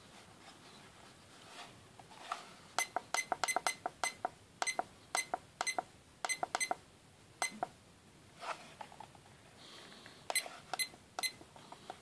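FanJu FJ3523 digital alarm clock giving a short, high beep at each button press as the alarm hour is stepped forward: about fifteen quick beeps in clusters with pauses, several a second at the fastest, starting a few seconds in.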